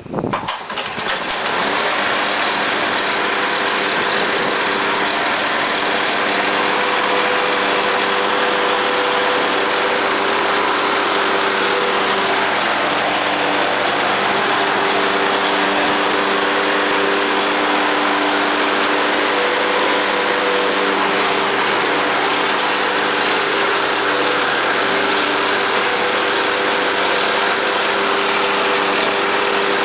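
Hayter Harrier 48 lawn mower's petrol engine catching after a pull on the starter cord, then running steadily at an even speed.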